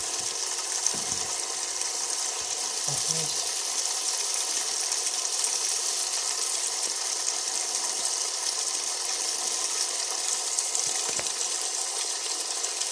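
Brastemp Eletrônica washing machine filling with water: a steady hiss of water pouring into the tub.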